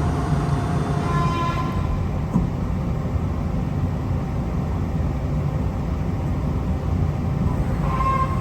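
Steady low machinery rumble, with a short pitched whine about a second in and again near the end.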